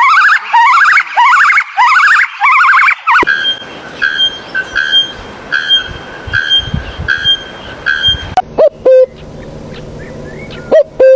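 A quick succession of three different repeated calls: first a fast series of rising whoops about two a second, then short evenly spaced hoot-like calls about every 0.7 s, then a few brief calls over a noisy background near the end.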